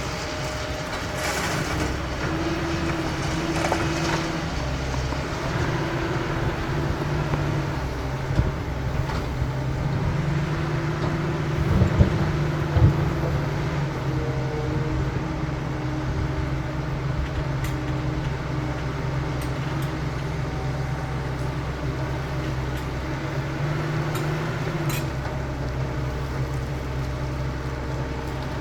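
CAT 320 hydraulic excavator's diesel engine running steadily as it works, with a hydraulic whine that comes and goes, and a couple of sharp knocks about twelve seconds in.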